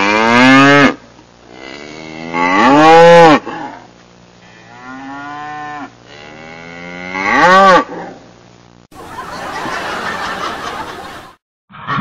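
Four long drawn-out animal calls, each rising and then falling in pitch; the third is fainter than the others. About nine seconds in, a rushing noise runs for about two seconds and then cuts off suddenly.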